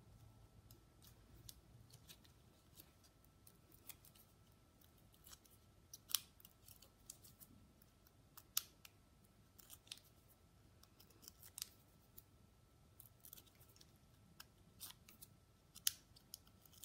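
Scissors snipping at irregular intervals, a scatter of light sharp snips with a few louder ones.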